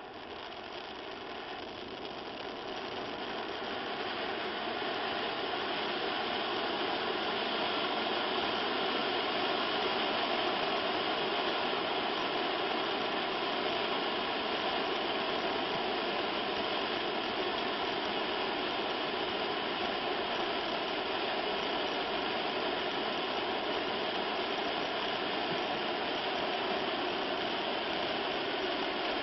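Large silver cylinder fountain firework burning with a steady rushing hiss, which builds over the first few seconds and then holds even.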